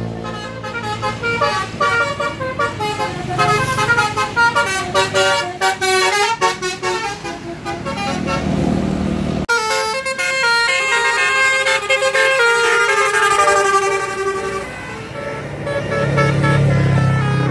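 Bus telolet horns, the multi-tone musical air horns of Indonesian buses, playing quick runs of stepped notes over the rumble of passing bus engines. The horn melody breaks off suddenly about halfway through and starts again.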